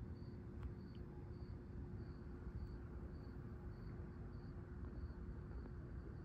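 An insect chirping in a steady rhythm, short high chirps about one and a half times a second, over a low rumbling background and a faint steady hum.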